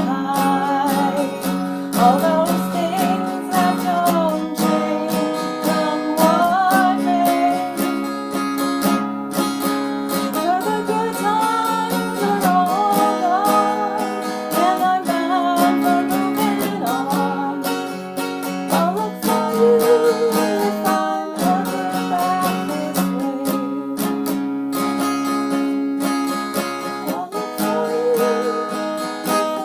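Acoustic guitar strummed steadily in a folk song, with a wavering melody line carried over the chords.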